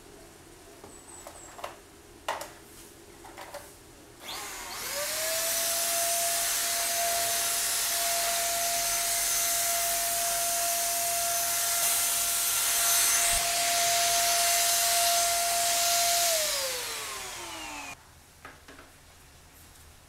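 Vacuum cleaner switched on a few seconds in: its motor spins up to a steady whine over a loud hiss, runs for about twelve seconds, then is switched off and winds down with a falling whine. A few light clicks and knocks come before it starts.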